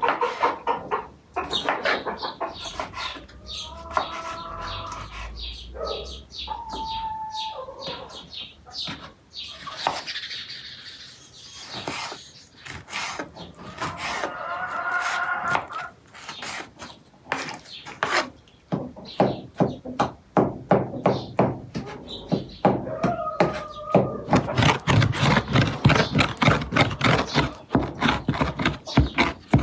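Knife chopping ripe tomatoes on a wooden cutting board: a run of quick knocks, then faster, denser chopping with a two-handled rocking mezzaluna. Birds call now and then in the background.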